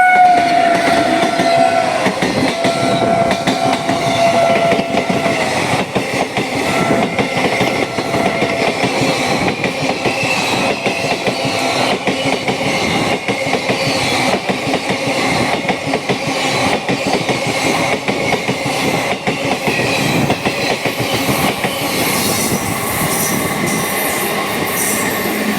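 Express train passing at speed: the locomotive's horn sounds in a few held blasts during the first several seconds, dropping slightly in pitch about two seconds in, followed by the steady rush and clickety-clack of coach wheels running over the rail joints.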